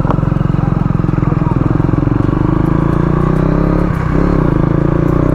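Motorcycle engine running with a steady, even firing pulse, its pitch briefly dropping and picking up again about four seconds in.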